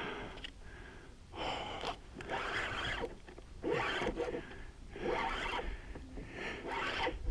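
A man breathing hard and raggedly from exertion, about six loud breaths a little over a second apart, while fighting a large hooked fish.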